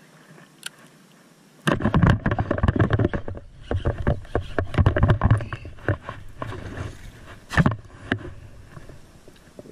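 Sudden loud commotion of a hooked largemouth bass being fought and swung aboard on a punching jig: thrashing, splashing, and rod and boat knocks starting about two seconds in and easing near the end.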